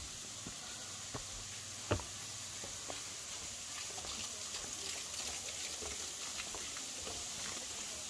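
Footsteps on a wooden boardwalk, faint ticks with one louder knock about two seconds in, over a steady hiss of falling water from a waterfall.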